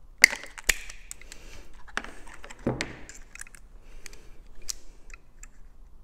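Side cutters snipping through grey flat 1 mm² lighting cable: two sharp snaps about a quarter and three-quarters of a second in. Then a duller knock and a run of lighter clicks as the cable is handled and a cable stripper is set on it.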